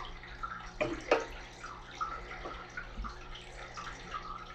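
Water sloshing and dripping as a long pipette is worked through a small glass tank of green water, with a couple of light knocks about a second in and a steady low hum underneath.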